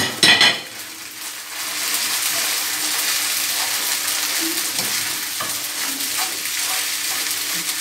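Vermicelli sizzling as it is sautéed in olive oil in a frying pan and stirred, a steady high hiss with small scraping ticks. There is a brief clatter at the very start, and the sizzle becomes steady after about a second and a half.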